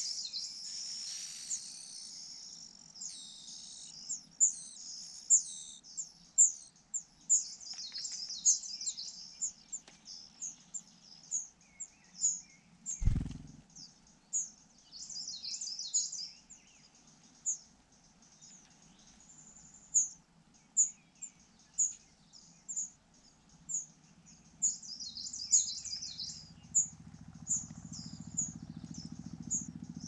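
Rufous-bellied niltava nestlings giving thin, very high begging cheeps, a dense flurry as the male feeds them at the start, then short chirps every second or so with a few quick clusters. A single dull thump about 13 seconds in.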